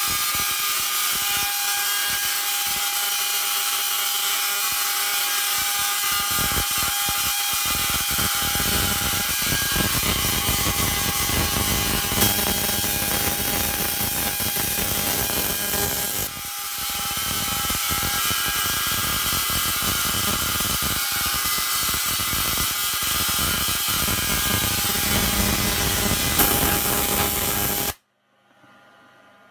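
Double-ended Tesla coil arcing between its two terminals: a loud, steady electric buzz with a steady whine in it. It dips for a moment about halfway through and cuts off abruptly near the end.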